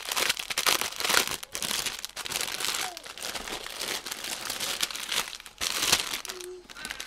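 Crinkling and crackling of clear plastic bags full of diamond painting drills being handled and unfolded, in irregular bursts.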